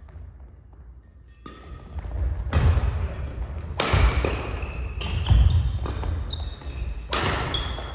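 Badminton rally: about six sharp racket-on-shuttlecock strikes, roughly one a second after the first second and a half, each echoing in the hall, with players' footsteps thudding on the wooden floor.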